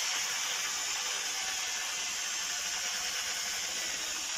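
Corded electric drill with a paddle mixer running steadily, stirring paint in a plastic bucket.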